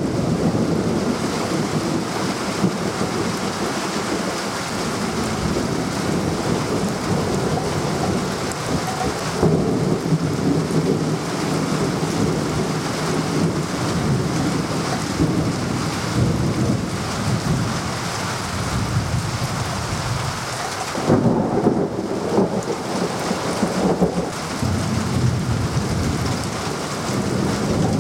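Heavy rain falling steadily with rolling thunder. Low rumbles swell up about a third of the way through, and the loudest peal comes about three quarters of the way through.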